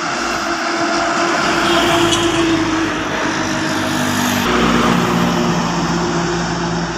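Road traffic passing close by: a motorcycle goes past, then a heavy loaded goods truck comes in about halfway through, its engine loud and its note dropping as it goes by.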